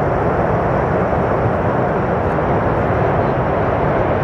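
Military fighter jet's engines at full takeoff power with afterburner lit, a steady, loud rushing noise as the jet accelerates down the runway.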